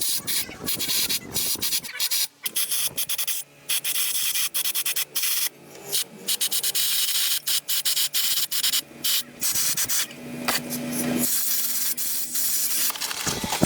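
Sanding during a car restoration: abrasive rubbed over a surface in quick, irregular back-and-forth strokes with short breaks.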